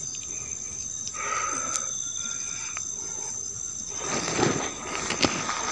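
Steady high-pitched chirring of night insects such as crickets, with a brief louder rustling scuff about four seconds in.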